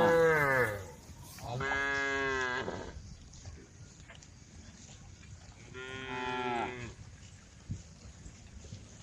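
Cows mooing: three long moos, the first already sounding at the start and falling in pitch as it ends, another at about two seconds and a third at about six seconds.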